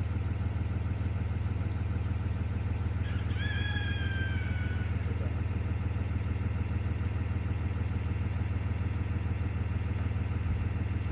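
A delivery truck's engine idling steadily, with a rooster crowing once about three seconds in.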